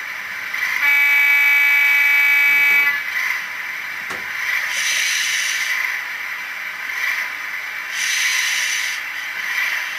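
Sound decoder in a Bachmann OO-gauge Class 37 model playing a recorded English Electric diesel idling, through the model's small speaker. A horn is sounded for about two seconds near the start, a single steady buzzy note, and later come two swells of air hiss.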